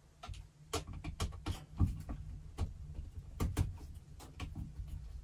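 Irregular light clicks and taps of hand work on an electrical box as the ground wire is fastened to the back of the box, over a steady low hum.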